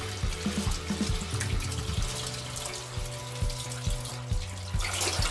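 Tap water running into a stainless steel sink and splashing over a gutted trout held under the stream, over background music with a steady low beat.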